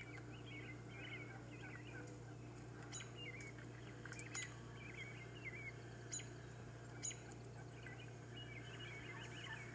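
Faint, scattered bird chirps and short calls over a steady low hum, heard as playback from a laptop.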